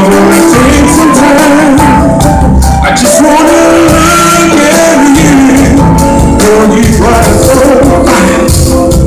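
A male singer singing live with a band behind him, his voice holding long, wavering notes over a full, loud band sound.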